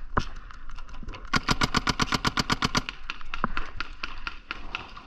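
Paintball marker firing a rapid string of about eighteen shots in a second and a half, starting about a second in, with scattered single shots before and after.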